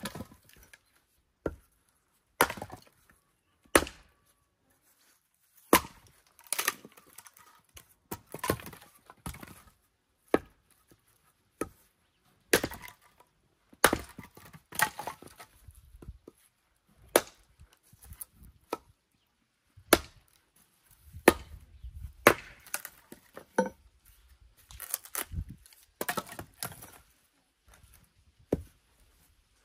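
Firewood being chopped with an axe: sharp, separate chops about once a second at an uneven pace, some followed by a short crackle of the wood splitting apart.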